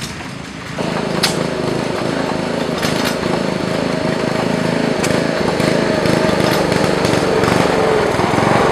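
Antique Lauson stationary gas engine running, coming in about a second in with a rapid, even beat that grows slightly louder.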